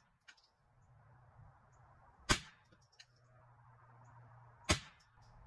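Two .22 LR rifle shots about two and a half seconds apart, each a single sharp crack, from a Ruger 10/22 semi-automatic fitted with a Kidd barrel.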